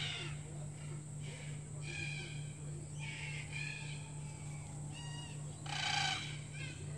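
Black cockatoos calling: a series of short calls from the flock, several times over, the loudest about six seconds in.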